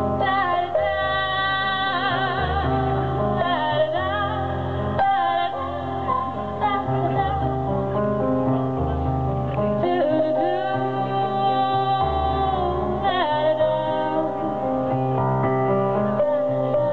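Music: a song with a sung melody, its long notes wavering with vibrato, over a steady bass line.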